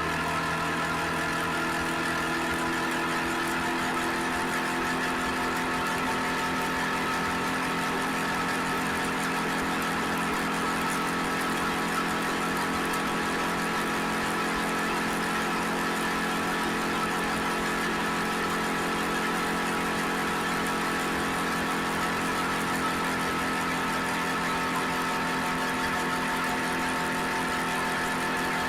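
Suzuki SV650X's 645 cc V-twin engine running steadily at an even, unchanging speed, with no revving.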